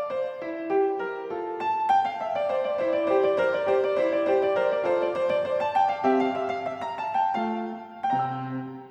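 Background piano music: a quick run of bright notes over a lower accompaniment.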